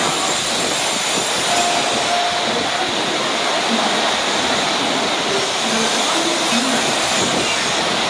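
Steady rushing noise of a Tokaido Shinkansen train at the platform, holding an even level throughout.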